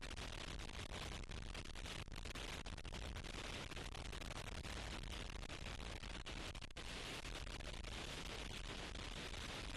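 Very strong wind: a steady rushing noise, with many brief dropouts in the sound.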